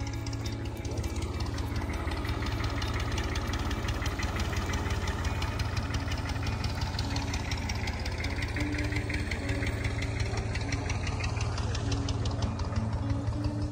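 An engine running steadily at idle, with a rapid, even pulsing.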